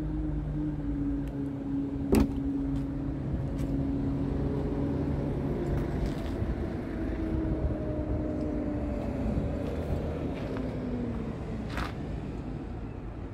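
A motor vehicle's engine droning with a low rumble underneath, its pitch sinking slowly over about ten seconds. A sharp knock comes about two seconds in, with a few lighter clicks.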